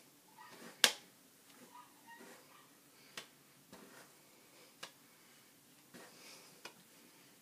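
Hair straightener and hairbrush being handled while straightening hair: one loud sharp click about a second in, then a few lighter clicks spread through the rest, with faint rustling of hair between.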